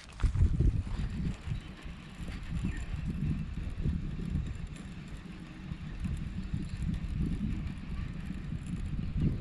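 Wind buffeting the microphone: an uneven low rumble that rises and falls in gusts, starting suddenly at the start.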